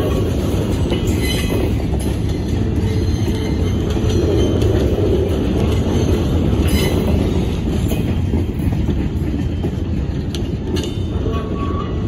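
Loaded log cars of a freight train rolling past at close range: a steady low rumble of steel wheels on rail, with a few sharp clicks at the rail joints and a brief faint wheel squeal near the end.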